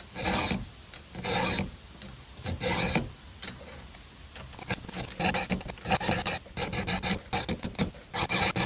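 Round chainsaw file rasping across the cutter teeth of a Stihl chain, sharpening it by hand in even push strokes. Three long strokes about a second and a half apart, then shorter, quicker strokes in the second half.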